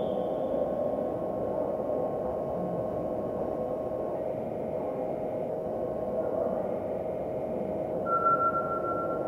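Indoor swimming-pool hall ambience: a steady hum under the echoing wash of swimmers splashing, with faint distant voices. A brief higher steady tone comes in about eight seconds in.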